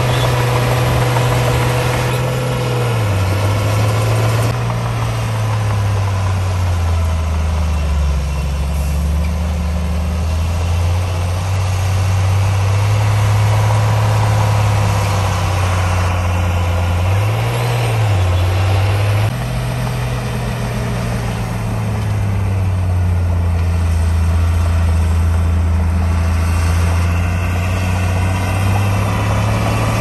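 Bulldozer's diesel engine running steadily, its low note dropping and rising again several times.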